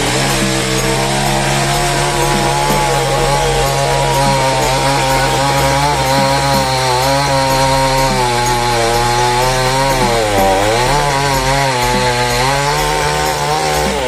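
Two-stroke chainsaw running at high revs while cutting into a banyan limb, its engine note held steady. About ten seconds in the pitch sags briefly and then climbs back.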